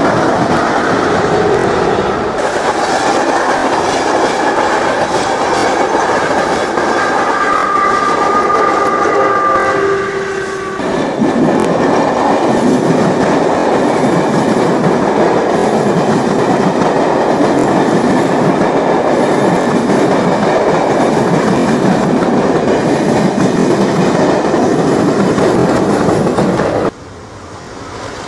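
Locomotive-hauled passenger train passing close over a level crossing, its wheels and coaches making a loud rushing clatter on the rails. Steady high tones sound over it for about the first ten seconds. The noise drops sharply near the end.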